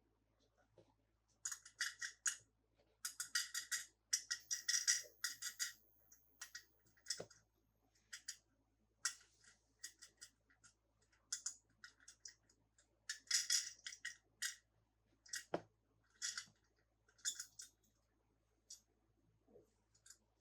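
Hands handling toy cars and their packaging: repeated short crinkling rustles and a few sharp clicks, in irregular bursts.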